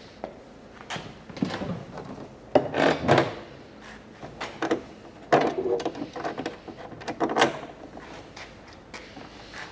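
Irregular knocks, scrapes and rattles of hard parts being handled, in clusters about three, five and seven seconds in.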